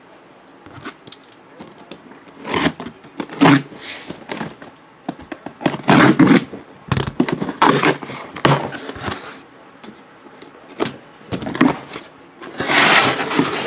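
Cardboard shipping case being opened by hand: the packing tape along its seam cut and torn and the cardboard flaps scraped and pulled open, in irregular bursts, with a longer, louder rip near the end as the front flap comes down.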